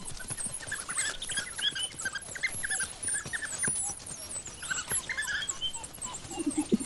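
African wild dogs twittering: a run of many short, high chirping calls as the pups greet the returning adults and beg for food, with lower squeals near the end.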